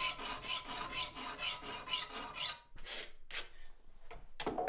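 A 14-inch bastard-cut half-round file skimming the cut edge of a steel backplate clamped in a vise, in quick even strokes about three a second, with a thin steady ring under them. The strokes stop a little past halfway, and a few separate scrapes and knocks follow.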